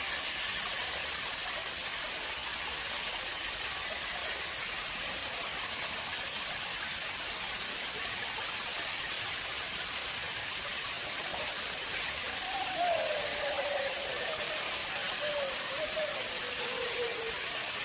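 Water flowing steadily into a man-made pond, a constant even rush. A faint wavering tone slides slowly downward in the last few seconds.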